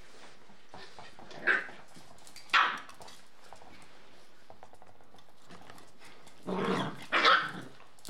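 Shiba Inu dogs barking in play: two short single barks about a second and a half and two and a half seconds in, then a longer run of barks near the end.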